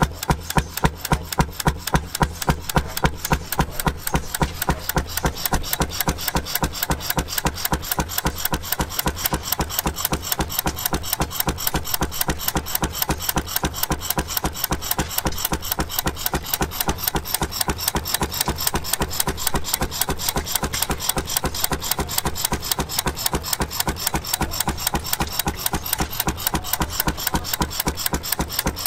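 Antique single-cylinder vertical marine gas engine running, firing in a steady, even beat of about four strokes a second. After about five seconds the beat quickens slightly and softens a little.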